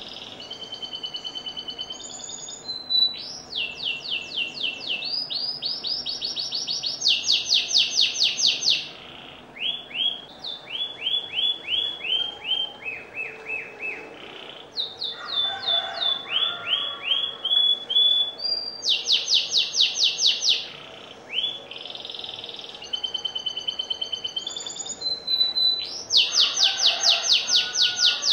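Domestic canary singing a long, continuous song. It moves through phrases of rapidly repeated notes at different speeds, with several very fast, loud rolling trills and brief breaks between phrases.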